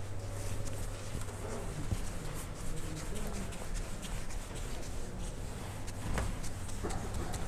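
Whiteboard eraser rubbing across a whiteboard in short, irregular wiping strokes, over a steady low hum.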